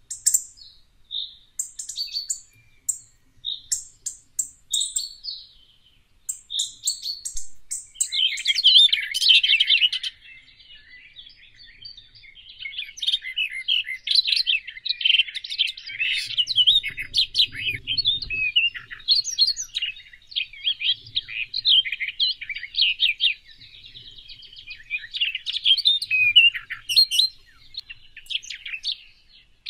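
Garden songbirds calling and singing: first separate short, high chirps repeated every second or so, then from about eight seconds in a dense, continuous twittering song.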